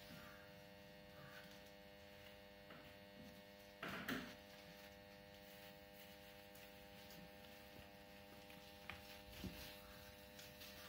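Near silence over a steady electrical mains hum, with a brief rustle of cloth being handled about four seconds in and a few faint ticks near the end.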